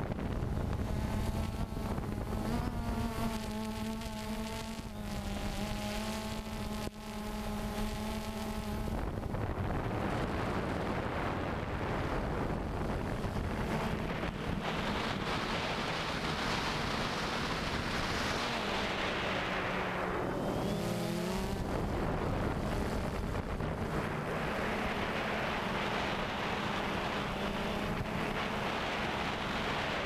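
DJI Phantom 2 quadcopter's motors and propellers buzzing in flight, heard from the GoPro it carries: a steady hum with overtones, which shifts in pitch a little past the middle as the drone manoeuvres. A rush of wind over the microphone joins it about nine seconds in.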